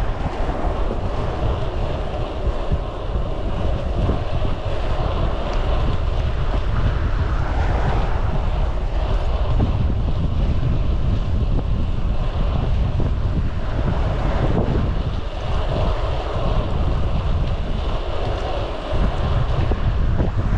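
Wind buffeting the microphone while riding a bicycle on a windy day: a steady, heavy low rumble with a hiss above it.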